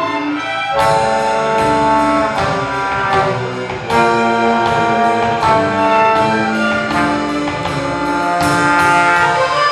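A symphony orchestra playing, with brass to the fore: full sustained chords that change every second or so, with fresh entries about a second in and again about four seconds in.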